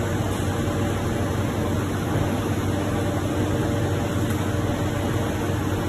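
Steady industrial machinery running with a constant low hum and an even hiss, around the laser cladding machine at work.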